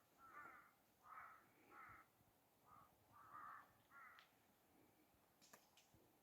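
Faint bird calls repeated over and over, about eight short calls in a row, with a couple of faint clicks near the end.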